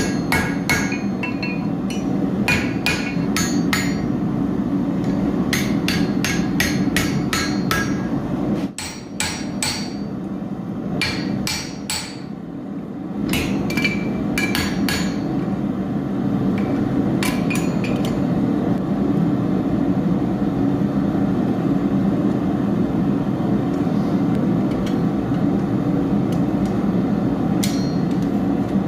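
Blacksmith's hammer striking hot steel on an anvil in quick runs of blows, each with a short metallic ring, over a steady low rushing noise. After about the middle the hammering thins to a few single blows.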